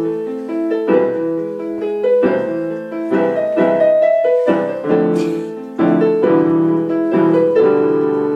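Piano music: chords struck about once a second under a melody line, played without a break.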